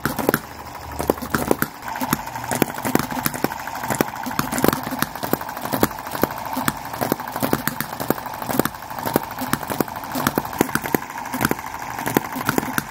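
Miniature model petrol engine running, firing as sharp, unevenly spaced knocks a few times a second over a steady hum.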